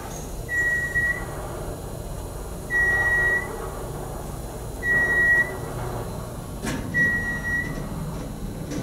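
Baxter & Sons traction elevator car travelling, its position signal giving a single steady beep about every two seconds as it passes each floor, four beeps in all, over the low hum of the moving car. A sharp click sounds a little before the last beep.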